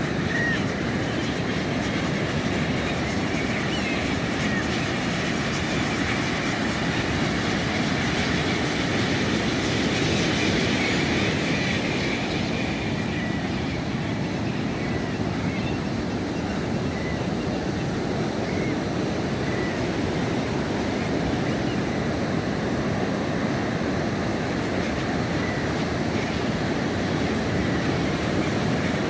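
Steady rush of surf and wind at a beach, with a colony of guano seabirds giving short calls scattered throughout, a little busier a third of the way in.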